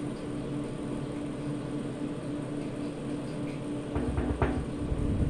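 Steady hum and cooling-fan noise from a live power amplifier rig. About four seconds in, loud pulsing mains buzz starts through the amplifier as a fingertip touches the open RCA input plug of a home-built parametric equalizer, a touch test showing the signal path is live.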